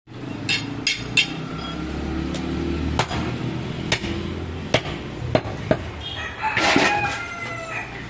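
Heavy cleaver chopping goat ribs on a wooden log block: about eight sharp knocks at uneven intervals. A rooster crows once, for about a second, a little after the middle.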